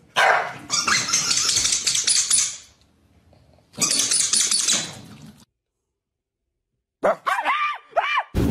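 Two dogs, one a corgi, growling and snarling at each other in two harsh stretches of a couple of seconds each, with a pause between. Near the end a man yells in short excited shouts.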